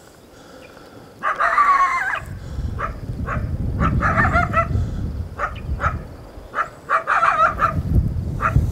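A coyote barking and howling in a series of bending, pitched calls. The longest comes about a second in, with more around four and seven seconds, over a low rumble.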